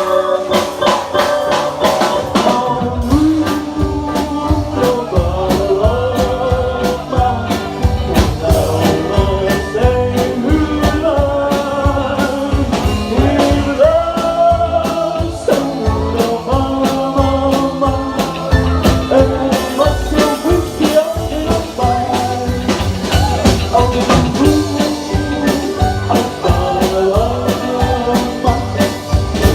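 Live rock band playing a song with drum kit, bass and electric guitar, and a sung melody line over them.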